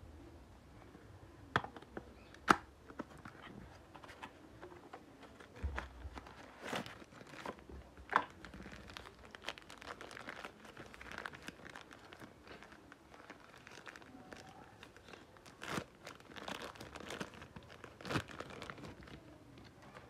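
Cable packaging opened by hand: sharp clicks and snaps of a cardboard box at first, the loudest about two and a half seconds in, then a plastic bag crinkling as the USB Type-C cable inside is taken out.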